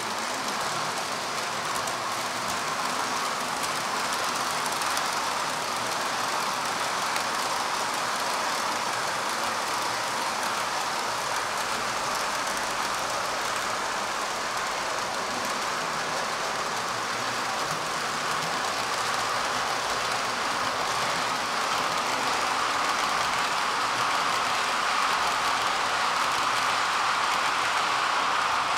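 Model railway train running along its track, heard from a camera riding on the train: a steady rolling noise of wheels on the rails.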